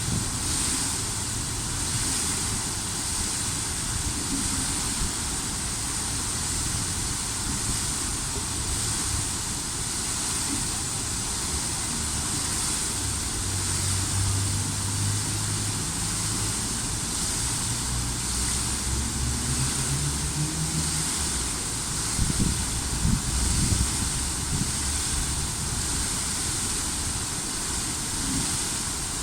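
Steady outdoor traffic noise: a constant hiss with the low hum of vehicle engines passing, one building in the middle and fading.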